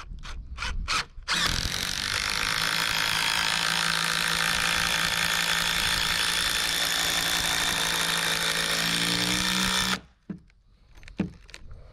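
Cordless DeWalt impact driver sinking a long screw into wooden siding boards: a few short pulses to start the screw, then about eight and a half seconds of steady hammering that stops suddenly.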